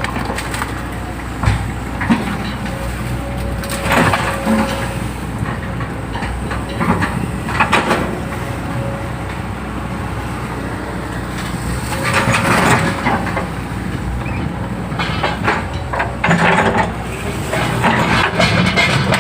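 Excavator's diesel engine running steadily, with recurring bursts of scraping and crunching every few seconds as the bucket digs into the ditch soil.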